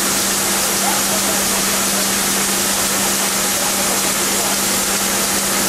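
Diaper and sanitary napkin production line machinery running: a steady, loud hiss with a constant low hum underneath.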